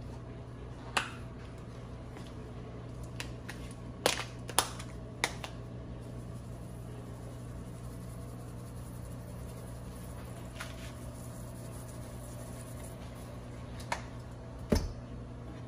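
Several sharp clicks and taps from a plastic spice container being handled over the cooking pots: two near the start, a cluster of three around the middle and two more near the end, over a steady low kitchen hum.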